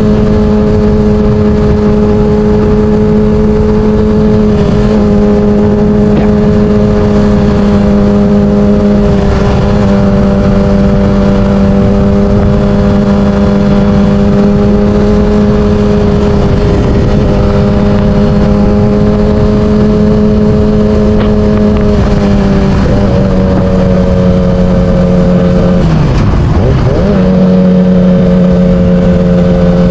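Yamaha R6's 600cc inline-four engine running at a steady speed under way, with wind rushing over the microphone. The engine note eases slightly about two-thirds of the way through, dips sharply near the end, then holds steady at a slightly lower pitch.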